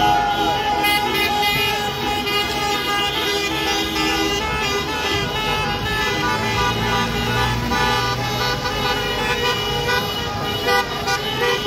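Several car horns honking at once, long held blasts overlapping one another over the noise of slow-moving traffic: football fans honking in celebration.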